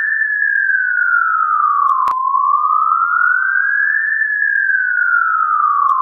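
Ambulance siren sound effect in wail mode: a single clean tone gliding slowly up and then back down, one rise and fall about every four seconds. A brief click comes about two seconds in, just as the tone bottoms out and starts rising again.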